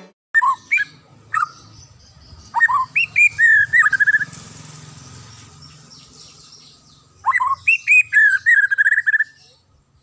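White-rumped shama (murai batu) singing loud, clear whistled phrases. After a few short notes, two longer song phrases each open with sharp sliding notes and end in a quick run of repeated notes.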